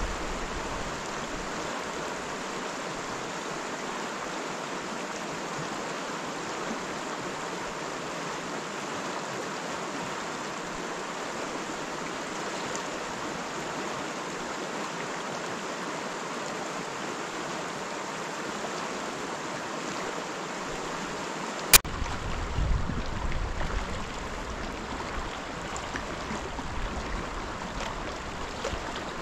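Water rushing over rocks in a shallow mountain stream riffle, a steady hiss. About three-quarters of the way through, a sharp click comes, and after it the water goes on with a low rumble coming and going underneath.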